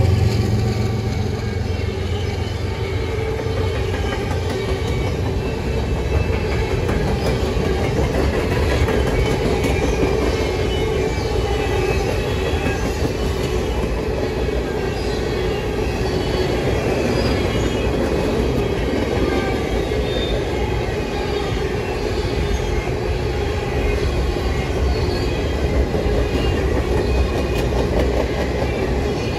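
Empty covered hopper cars of a freight train rolling past at steady speed: a continuous rumble and clatter of steel wheels on the rails, with faint high-pitched wheel squeals here and there.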